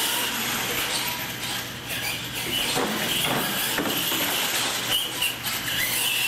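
Radio-controlled monster trucks racing: electric drive motors and gears whining at a high, wavering pitch, with tyres rolling on the concrete floor.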